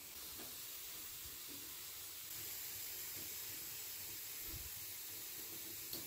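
Exo Terra pump-action pressure mister spraying a fine mist, a faint steady hiss that grows slightly louder about two seconds in.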